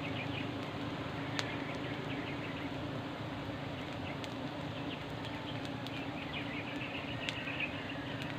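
A swarm of wild honeybees buzzing as a steady hum, the bees stirred up by smoke and flying off their comb. A few sharp clicks stand out now and then.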